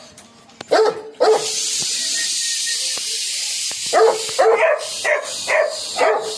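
Rottweiler puppy barking in short barks: a few about a second in, then a quick run of them from about four seconds in. A steady hiss fills the gap between them.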